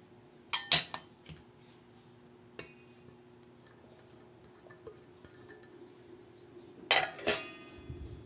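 Clinks against a stainless steel mixing bowl as chopped vegetables are tipped into it: two sharp knocks just over half a second in, a light tap near the middle, and two more knocks about seven seconds in that leave a brief metallic ring.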